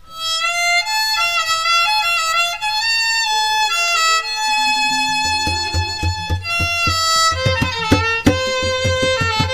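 Background music with a violin melody; a low beat and light percussion come in about halfway through.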